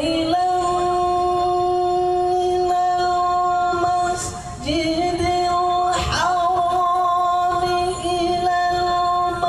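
A high solo voice chanting Islamic devotional singing in long held notes, each about four seconds, with a short break in the middle; the notes start with a quick vocal ornament and then hold steady.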